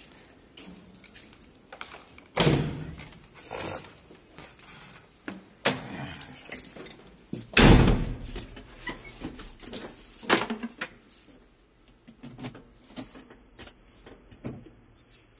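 Knocks and thumps of climbing into a JCB 3DX backhoe loader's cab, with a loud bang of the cab door shutting about eight seconds in. Near the end the ignition is switched on and the dashboard warning buzzer starts a steady high-pitched tone.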